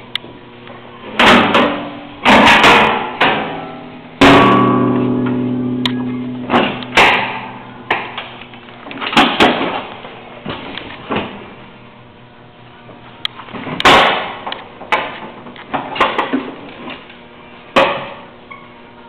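A dozen or so loud metallic knocks and clanks at uneven intervals. One about four seconds in rings on and dies away over about two seconds.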